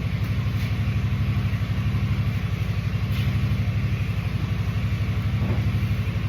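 Lawnmower engine idling steadily, its even, rapid firing pulse unchanged throughout.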